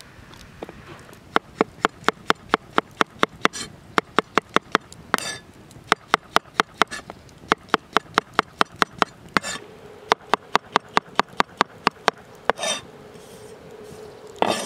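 Serbian chef's knife chopping brown button mushrooms on a wooden board: runs of sharp knocks, about six a second, broken by a few short scraping sounds between the runs.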